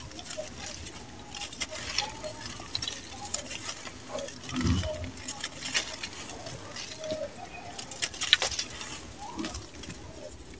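Dry sand-cement lumps crumbled by hand: gritty crunching with many small sharp cracks and the patter of falling grit and powder. The loudest crack comes a little after eight seconds in.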